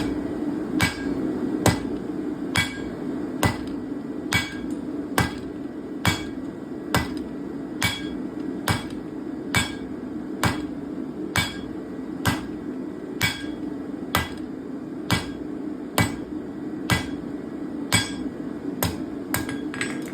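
Hand hammer striking hot steel flat bar on an anvil, forging out a leaf: an even rhythm of sharp ringing blows, a little more than one a second, with lighter strikes between them. A steady hum runs underneath.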